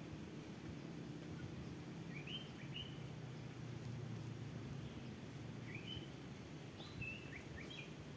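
Small birds chirping in short quick notes, a pair about two seconds in and a cluster near the end, over a faint steady low hum.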